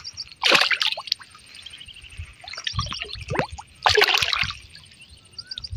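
A hooked snakehead (murrel) splashing at the water surface as it is reeled in, in several short bursts of splashing.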